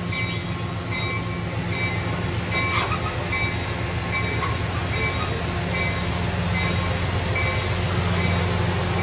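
Amtrak Pacific Surfliner passenger cars rolling past close by: a steady rumble of wheels on rail with a low hum. A short high ding repeats about one and a half times a second.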